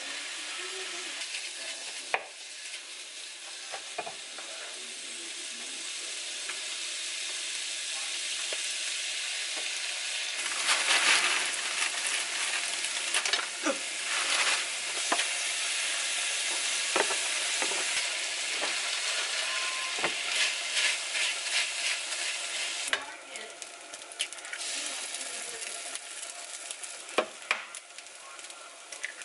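Ground pork, vegetables and rice sizzling in a nonstick frying pan, stirred with a wooden spoon, with scattered sharp knocks of the spoon against the pan. The sizzling grows louder in the middle, then eases off near the end as eggs fry in the pan.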